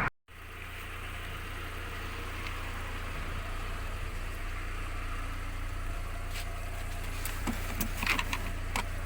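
A motor vehicle running with a steady low rumble, with a few light clicks and knocks near the end.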